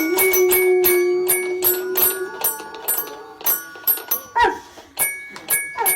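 Music with a quick ticking beat, about four ticks a second, under chiming bell-like notes and a long held note near the start.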